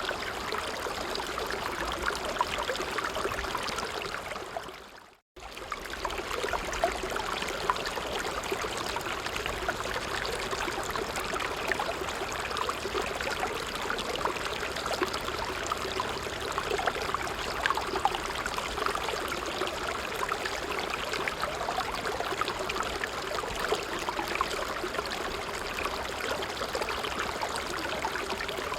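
A brook running steadily, its water trickling and babbling over stones. The sound fades and drops to silence for a moment about five seconds in, then comes back abruptly.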